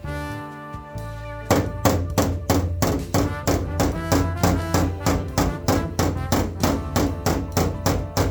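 Background music with a steady, fast beat; it opens on a held chord and the drums come back in after about a second and a half.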